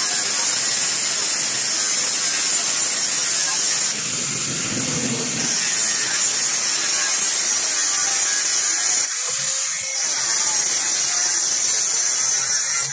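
Handheld angle grinder with a cut-off disc slicing through a steel sheet: a steady, high-pitched grinding hiss, dipping briefly about four and nine seconds in.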